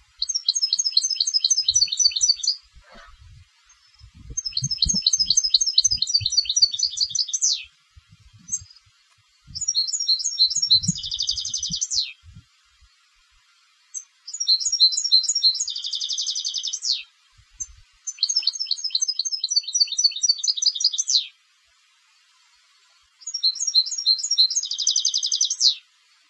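A contest-trained European goldfinch singing in six phrases with short pauses between. Each phrase is a fast run of repeated high, twittering notes, and the later ones end in a dense buzzy trill.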